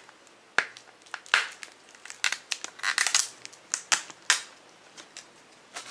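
Fingernail picking and peeling a shredding price sticker off a plastic Blu-ray case: irregular sharp crackles and scratches, thickest in a cluster around the middle.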